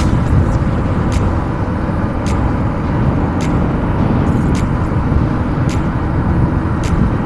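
Hero Splendor Plus motorcycle's single-cylinder engine running at cruising speed, mixed with a steady rush of wind. A faint click comes about once a second.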